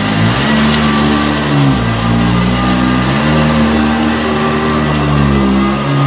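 Eureka 7.0 amp commercial upright vacuum cleaner running on carpet. Its motor pitch drops and rises every second or so as it is pushed back and forth, slowing as the nozzle sucks down onto the carpet.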